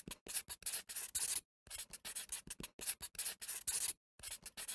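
Handwriting sound effect: a pen scratching on paper in quick, short strokes, several a second, with two brief pauses.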